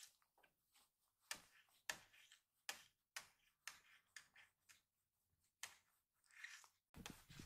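Faint, irregular small clicks and soft rustles from a young kitten being stroked on a cloth apron in someone's lap, with a dull low thump near the end.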